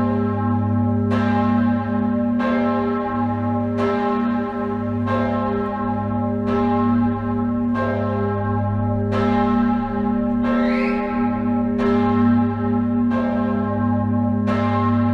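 The great bell (Gis°, cast by Jakob Mathis Rageth in 1781) of a church tower swinging alone, struck evenly about every 1.3 seconds. Each stroke rings on over a deep hum that carries through between strokes.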